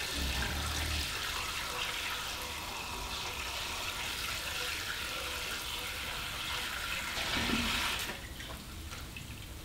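Fermented plum liquid running through a siphon hose and splashing into a bucket in a steady gushing pour. The flow swells briefly, then falls away sharply near the end.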